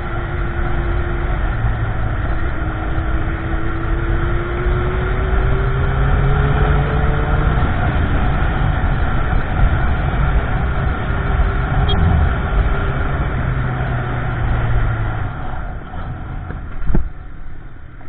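Motorcycle riding on the road under a steady low noise, its engine note climbing as it accelerates a few seconds in. The sound eases off near the end, with one sharp click.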